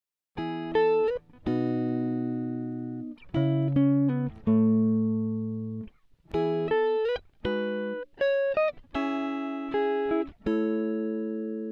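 Background music: a plucked-string melody of notes that ring and fade one after another, with a short pause about six seconds in.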